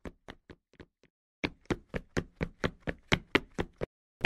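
Cartoon jogging footstep sound effects: quick, evenly spaced taps about four to five a second, fading away within the first second, then returning louder after a short pause. A sudden loud crash breaks in right at the end.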